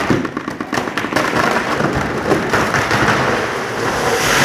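A large tree's trunk snapping and splintering at its split base: a rapid run of sharp cracks, then a swelling crashing rush as the tree comes down, loudest near the end.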